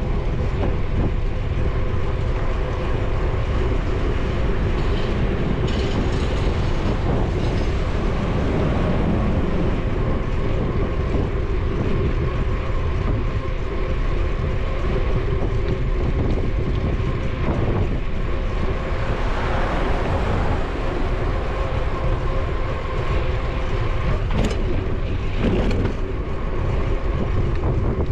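Riding a bicycle: wind buffeting the camera's microphone with a steady low rumble of tyre and road noise and a faint hum underneath. There are two sharp knocks near the end.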